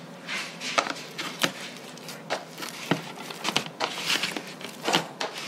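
Wet hands pressing and folding sticky sourdough bread dough in a plastic tub, giving irregular soft squelches and sharp clicks and knocks against the plastic. This is the dough being worked a second time after its first rest.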